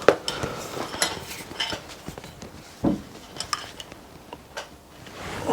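Scattered light clicks and metallic clinks of small parts, wires and tools being handled, with a sharper knock right at the start and another about three seconds in.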